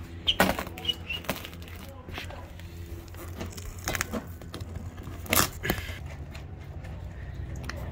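A small knife cutting and prying into the laminated fiberglass skin of an RV roof, giving irregular crackling and snapping clicks as the skin breaks, over a steady low rumble.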